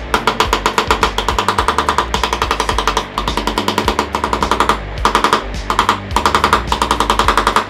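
Rapid light hammering, about eight to ten sharp taps a second in runs with brief pauses, as a tool is struck around the rim of a motorcycle speedometer to seat it back together. Background music with a steady bass runs underneath.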